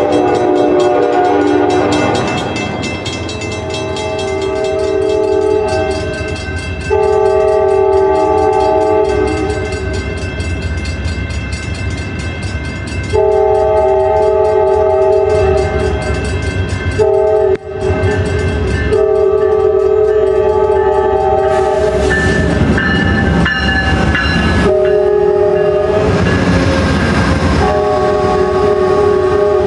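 Amtrak P42DC diesel locomotive sounding its multi-note air horn in a series of separate blasts as it approaches. In the last several seconds the pair of P42DC locomotives passes close by, engines running and wheels clicking over the rail joints under the horn.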